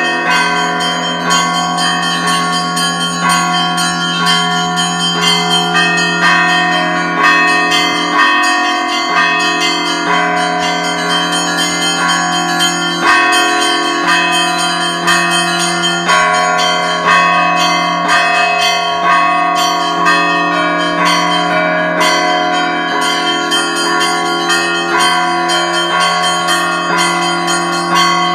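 Russian Orthodox church bells rung as a continuous peal: many bells of different pitches struck in quick succession and overlapping, over a deep low bell tone that sounds throughout.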